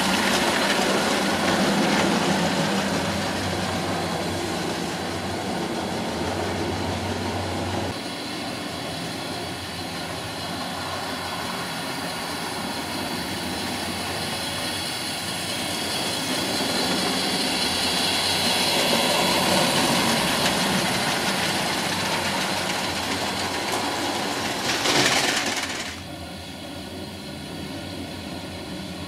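Gauge 1 model train running on the layout: a steady rolling hum of the locomotive's motor and the wagon wheels on the rails. Near the end there is a brief louder burst, then the sound drops to a quieter level.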